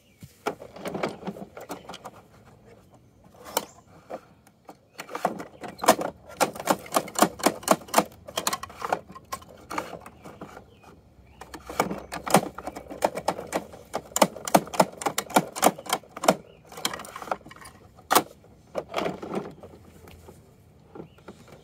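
Runs of rapid plastic clicking and ratcheting from a Bruder toy garbage truck's bin-lifting mechanism being worked by hand, in several bursts of quick ticks with short pauses between.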